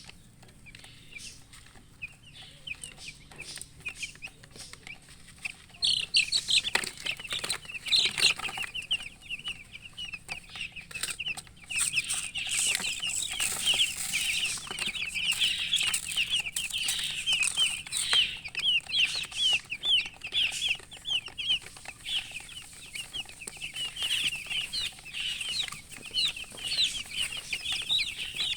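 Newly hatched chicken chicks peeping loudly, many short high peeps overlapping. The peeps are sparse at first and become a dense chorus from about six seconds in, with scattered light clicks among them.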